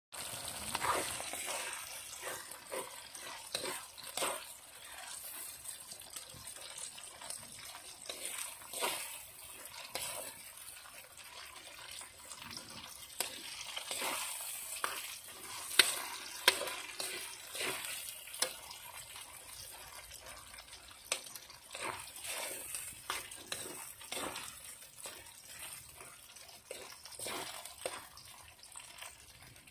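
Kitchen food-preparation sounds: food being stirred and handled, with irregular clicks and knocks of utensils over a faint steady hiss.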